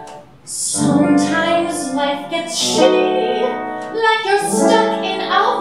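A woman singing a comic musical-theatre song, her voice coming in about three-quarters of a second in after a brief lull and holding long sung notes.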